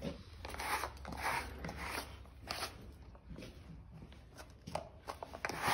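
Rubber curry comb scrubbing a shedding horse's coat in quick repeated strokes, a little under two a second, loosening the winter hair.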